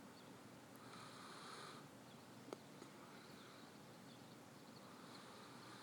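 Near silence: faint rustling of a sheet of paper being folded, with one small click about two and a half seconds in.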